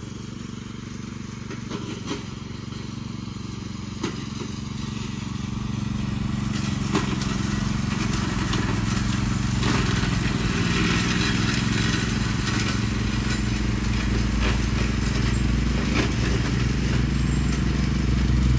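Riding lawn mower engine running steadily under cutting load, growing louder as the mower comes closer. A few sharp cracks and snaps are heard along the way.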